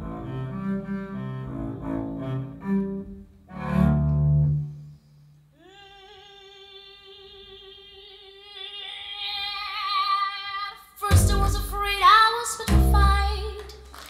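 Recorded voice-and-double-bass music: double bass phrases, then a female voice holding one long note with vibrato, ending in a few loud accented hits from voice and bass.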